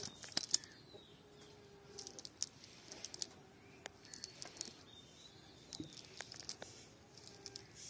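Hand-cast fishing net being picked over by hand on the ground: light rustling of the mesh with scattered small clicks. A landed tilapia flaps on the grass near the start.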